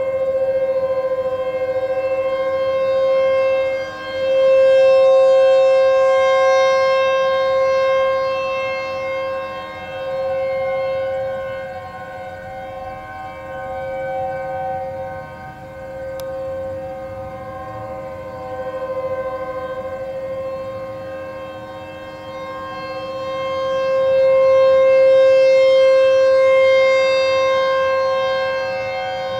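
Outdoor civil-defense warning siren sounding a steady tone at one pitch, its loudness slowly swelling and fading, loudest about five seconds in and again near the end.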